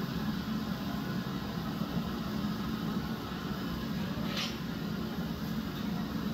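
Gas-fired glassblowing furnace burners and blower running steadily, a constant low rumble, with a short high hiss about four seconds in.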